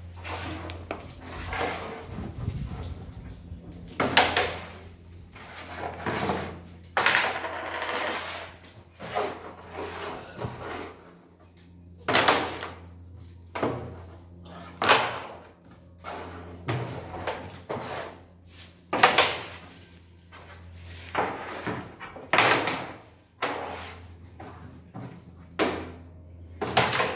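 Carrom game in play: the striker is flicked across the wooden board and clacks into the wooden coins and the board's frame, sharp knocks coming irregularly every second or two. A steady low hum runs underneath.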